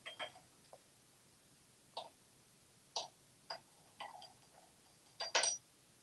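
A small metal spoon clinking and scraping on a hard bathroom countertop as an African grey parrot picks it up and handles it with its beak: a string of short, sharp clinks at irregular intervals, several with a brief high ring. The loudest cluster comes about five seconds in.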